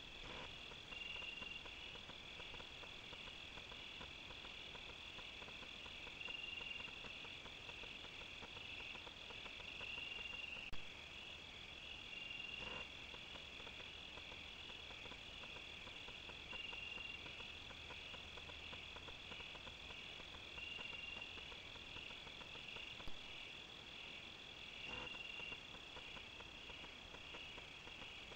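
Night chorus of crickets trilling steadily, with a shorter note repeating every couple of seconds. Two faint clicks stand out partway through.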